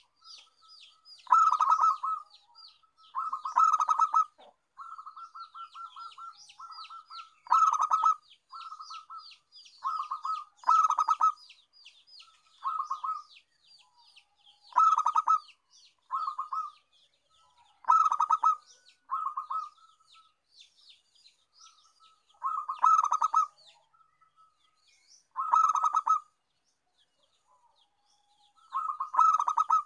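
Zebra dove (perkutut) cooing: loud staccato phrases of rapid clipped coo notes, repeated every two to four seconds, with softer runs of notes in between. Faint rapid high chirping sits behind it, mostly in the first half.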